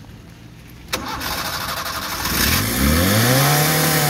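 Owner-type jeep engine being started: a click, about a second of starter cranking, then the engine catches and revs up, its pitch starting to sag near the end. It is a hard-starting engine that the owners suspect is not being fed fuel by a failing electric fuel pump.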